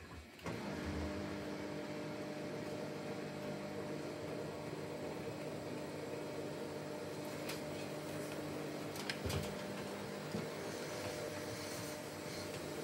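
Samsung WW90 front-loading washing machine tumbling a wet load during the pre-wash: the drum motor starts about half a second in and hums steadily as the laundry turns, with a few brief clicks about two-thirds of the way through.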